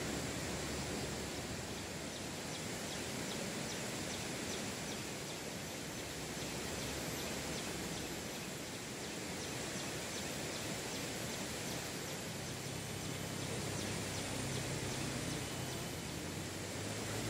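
Steady outdoor ambience at a campsite clearing: an even hiss, with faint rapid ticking high up through the middle stretch.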